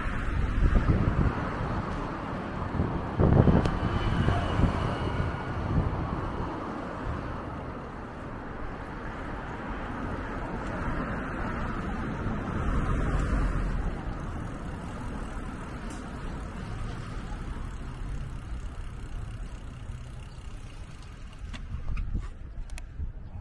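City road traffic: cars passing on an adjacent multi-lane street in a continuous rumble, louder in the first few seconds, with a few light clicks near the end.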